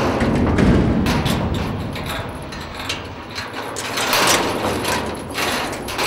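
Metal chain rattling and clinking against a sheet-metal door as it is handled at the door's handles, in irregular clinks and clanks.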